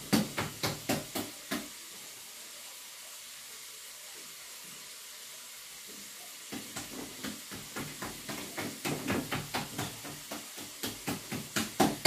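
Hands patting and pressing semolina dough for harcha into a pan: quick soft taps, several a second, that stop for a few seconds about two seconds in, leaving a steady faint hiss, and then start again and carry on.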